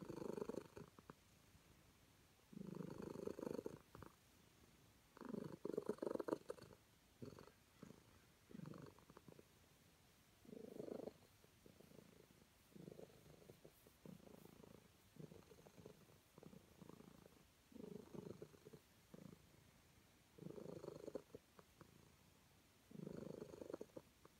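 Calico cat purring softly as it is scratched under the chin and on the head, a sign of contentment. The purr swells and fades with each breath, about one round every second or two.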